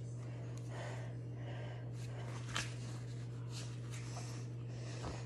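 Soft nasal breathing, a few short breaths a second or so apart, over a steady low electrical hum.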